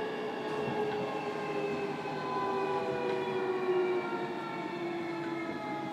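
JR Kyushu 305 series EMU's Toshiba PMSM traction inverter and motors whining in several tones that fall steadily in pitch as the train slows, over wheel-on-rail rumble, heard from inside the motor car.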